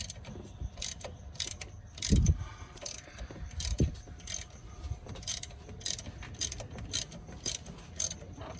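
Hand ratchet clicking in slow, regular strokes, about two to three clicks a second, as a puller is wound in to draw the crankshaft pulley off a Camaro SS's LT1 V8. A duller knock sounds about two seconds in.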